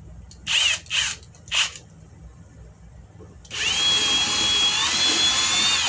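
Kobalt 24V cordless drill drilling out a hole in a wooden block. Three short bursts of noise in the first two seconds, then the drill runs steadily for about two and a half seconds with a high whine that steps up slightly near the end.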